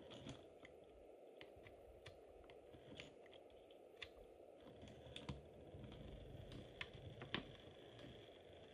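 Faint, irregular clicks and ticks of OO gauge model railway wagons being shunted along the track, with a low rumble joining about halfway through; the sharpest click comes near the end.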